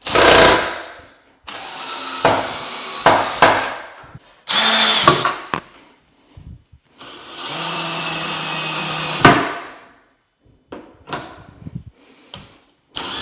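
Power drill running in several short bursts, the longest about two seconds with a steady hum, separated by sharp clicks and knocks.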